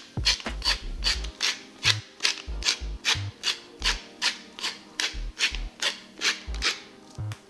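Hand pepper mill grinding black peppercorns, a gritty rasp repeated about three times a second as the mill is twisted back and forth.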